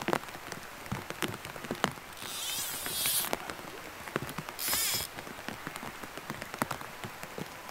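Heavy rain pattering on a plastic bag over the microphone: a dense, irregular stream of sharp taps. Two short hissing swishes, about two and five seconds in, come from the fly line as it is false-cast to dry the fly.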